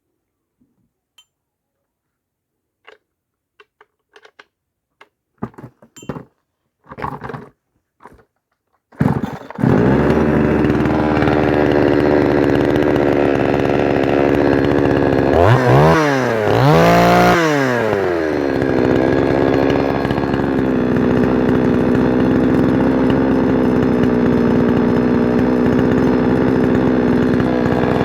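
A few short clicks and rasps, then a two-stroke chainsaw engine starts about nine seconds in and runs steadily. It is revved up and back down twice in the middle and again near the end, as in a test run with a newly fitted clutch.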